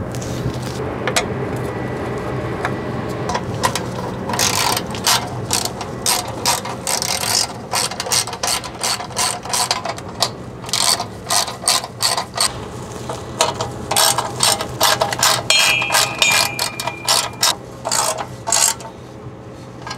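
Hand ratchet clicking in quick runs of strokes as it drives in the bolts of the protective shield over a truck's DEF dosing pump. The clicking starts about four seconds in and goes on until shortly before the end.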